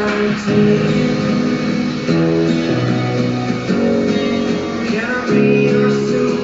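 A song's guitar-led instrumental passage playing through the Hisense Tornado TV's built-in speakers, its chords changing every second or so.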